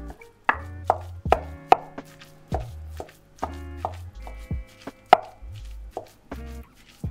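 Background music with a beat: low bass notes, a pitched melody and sharp drum hits about every half second.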